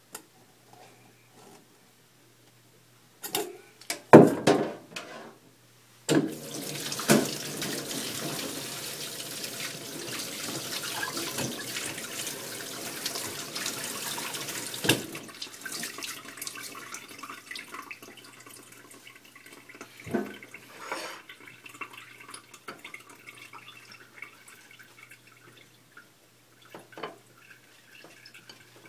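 A few loud knocks about four seconds in, then a kitchen tap running steadily for about nine seconds before it is turned off. After that, a few light clicks and knocks.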